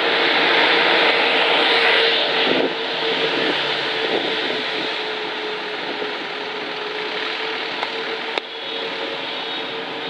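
Optare Solo single-deck bus driving past, its engine and tyre noise loudest in the first two or three seconds, then dropping as it moves away. A steady hum continues underneath, and there is a single sharp click about eight seconds in.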